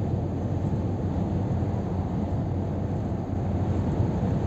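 Scania R 500 truck with a 13-litre straight-six diesel cruising at motorway speed, heard from inside the cab: a steady, low engine hum blended with tyre and road rumble.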